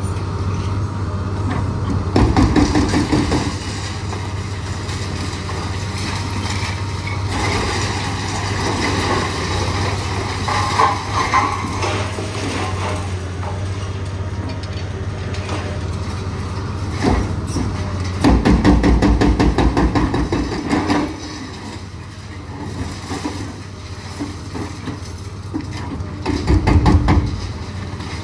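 Liebherr 954 excavator's diesel engine running with a steady low hum, while its hydraulic breaker hammers in three loud bursts of rapid blows: about two seconds in, for a few seconds about two-thirds through, and again near the end.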